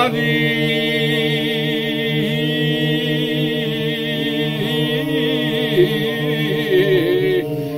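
A group of men singing a Georgian polyphonic folk song in several parts, holding long sustained chords over a steady low drone, with the upper voices shifting pitch now and then.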